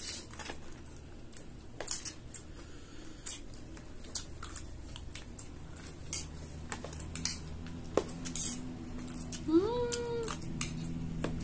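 Small metal spoons clinking and scraping against ceramic plates as two people eat, with chewing, in scattered short clicks. Near the end comes a short vocal sound that rises in pitch and then holds.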